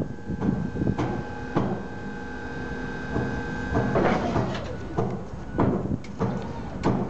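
Nichiyu rack forklift's fork head and mast working high up, with a steady whine that stops about four seconds in and a run of metallic clanks and knocks as the head turns.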